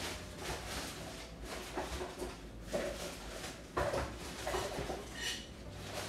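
Someone rummaging out of frame: scattered light knocks and rustles, with a brief high squeak about five seconds in, over a low steady hum.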